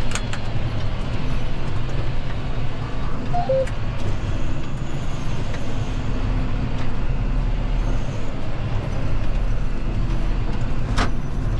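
John Deere tractor engine running steadily while the tractor drives over the field, heard from inside the cab as a low drone. A single sharp click near the end.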